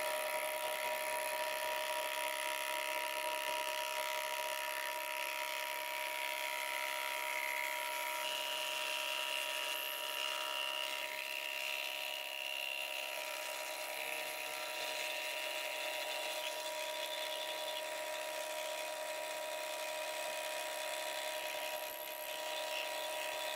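Milling machine running with a steady whine as its spinning cutter skims the top of an aluminium Kawasaki X2 jet ski cylinder, decking it flat for a new gasket surface.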